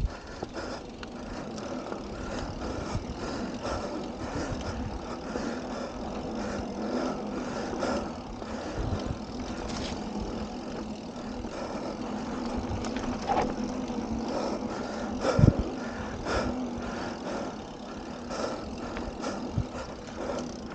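Mountain bike rolling fast down a hard-packed dirt trail: steady tyre noise and a faint hum, with frequent rattles and knocks as the bike runs over bumps, the sharpest knock about fifteen seconds in.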